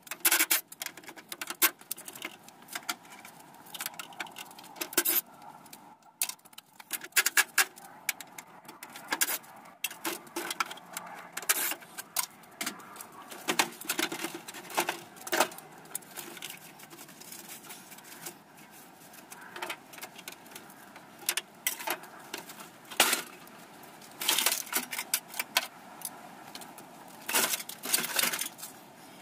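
Irregular metal clinks, clicks and rattles from hand tools and loose parts as a window air conditioner is taken apart for scrap, with quick bunches of clatter near the end.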